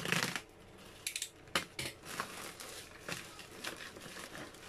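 Plastic courier mailer bag being cut open with a box cutter and pulled back by hand, with the plastic and bubble wrap crinkling and rustling. The loudest rustle comes right at the start, then irregular crackles follow.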